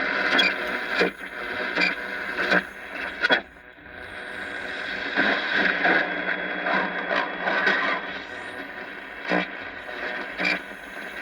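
Realistic DX-200 shortwave receiver playing static and hiss between stations, with scattered clicks and crackles and an uneven level that drops briefly about three and a half seconds in.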